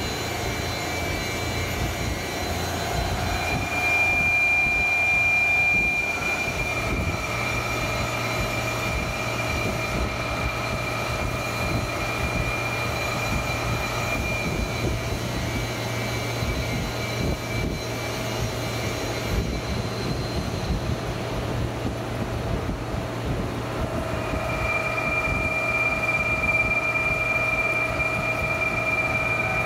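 Floor-type CNC horizontal boring mill running as it machines a large casting: a steady mechanical hum with a high, even whine that drops away for a few seconds past the middle and comes back near the end.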